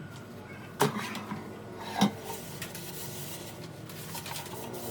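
Hard kitchenware parts knocking together as they are handled, most likely the air fryer's basket and pan: two sharp knocks about a second apart, with lighter clicks between.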